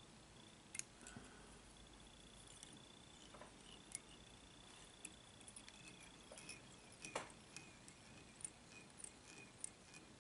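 Faint small clicks and ticks of fly-tying tools, a thread bobbin and the hook vise, handled while thread is wound onto a small dry fly hook. Two sharper clicks come about a second in and about seven seconds in. A faint steady high whine runs through the first two thirds.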